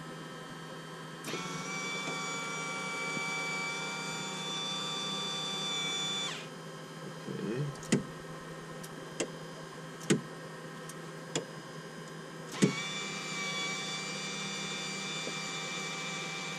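Electric actuator motor of a Diamond DA42's variable elevator stop whining steadily while it is tested. It runs for about five seconds, stops, and starts again about six seconds later, with several sharp clicks in between and a low electrical hum underneath.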